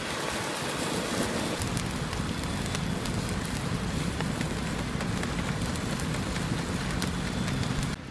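Grilling over an open wood fire: a steady sizzling hiss with many small crackles and pops scattered through it.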